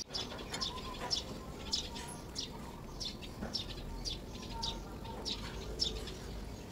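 A small bird chirping over and over, short high chirps at about two to three a second.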